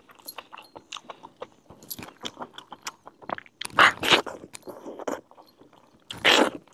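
A man eating a mutton leg piece with his hands, biting and tearing meat off the bone and chewing, with many small mouth clicks and two louder bites about four and six seconds in.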